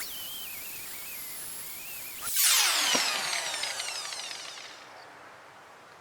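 Highland Park wet grinder/polisher with a stone held to its 50-grit pad: a wavering high grinding whine. About two seconds in a louder whine starts, then falls in pitch and fades away over the next couple of seconds.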